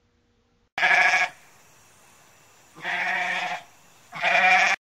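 Goat bleating three times, the middle bleat quieter than the other two, with a faint hiss between the calls.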